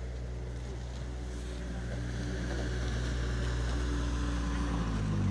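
A car engine running steadily at low revs, growing gradually louder over the last few seconds.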